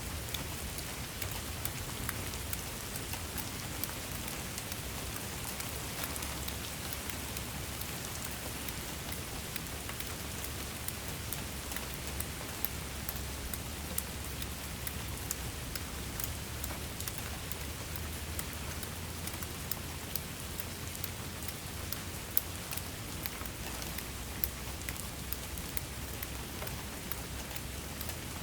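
Steady rain falling, with a dense patter of individual drops ticking sharply against a surface over a constant hiss and a low rumble underneath.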